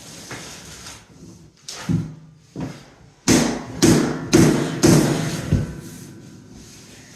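Mallet knocking luxury vinyl plank flooring into place: two lighter knocks, then five hard blows about half a second apart.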